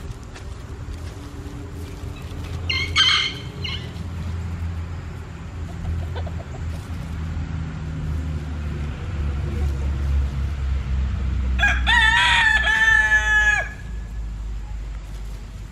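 Backyard chickens: a brief squawk about three seconds in, then a rooster crows for about two seconds near the end, over a steady low rumble.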